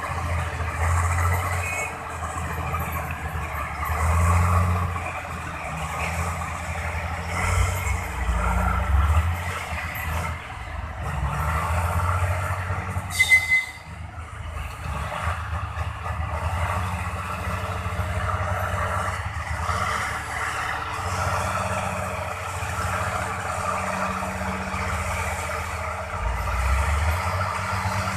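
Heavy diesel dump trucks and a bulldozer running and manoeuvring: a low engine rumble that swells and fades as the machines move. A brief, sharp burst of noise comes about halfway through.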